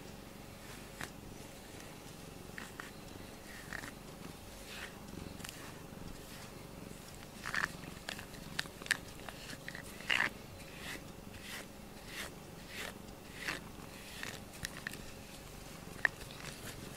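A domestic cat purring steadily while a pink rubber grooming brush scrapes through its fur. The brush strokes come as short scratchy rasps, more frequent from about halfway through, with one sharp click near the end.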